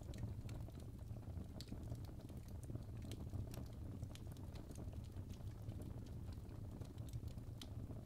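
Fire crackling: irregular small pops and snaps, several a second, over a steady low rumble of flames.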